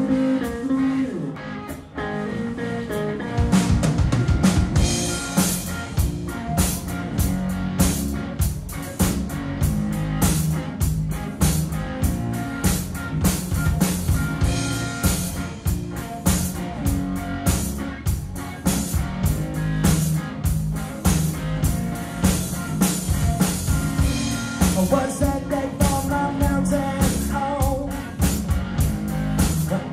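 Live rock band playing a pop-rock cover on electric guitar, bass guitar and drum kit. Guitar opens alone and the drums come in about three to four seconds in with a steady beat; a male voice starts singing near the end.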